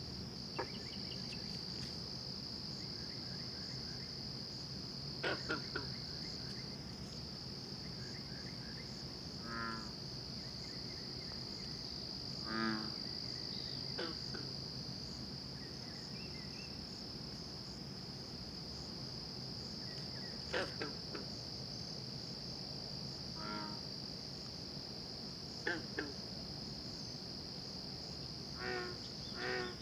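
Night chorus of frogs: a steady high-pitched trilling throughout, with short, goose-like honking calls breaking in every few seconds and several in quick succession near the end.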